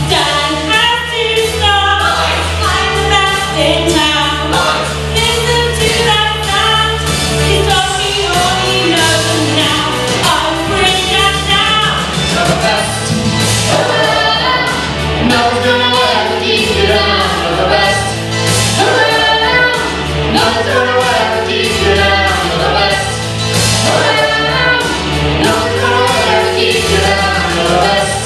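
A song sung live by a small group into microphones, a woman's voice among them, over a backing track with steady bass notes and a regular beat, amplified through PA speakers.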